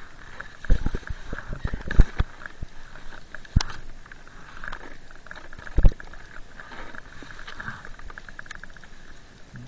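Snow crunching and scraping close to a body-mounted action camera as a snowboarder shifts about in deep snow beside a snow wall. There is a steady rustle with several sharp knocks, the loudest about two seconds in and just before six seconds.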